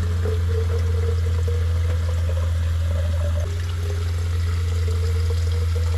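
Water running from a camper van's kitchen faucet into a plastic water bottle, over the steady low hum of the van's onboard water pump. The hum starts and stops with the tap and dips slightly about three and a half seconds in.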